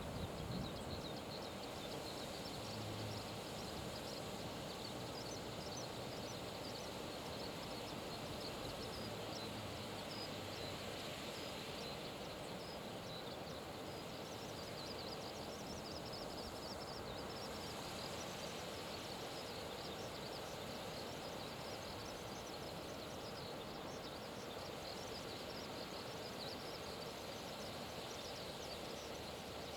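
Steady outdoor riverside ambience of wind and flowing water, with faint high ticks scattered through it.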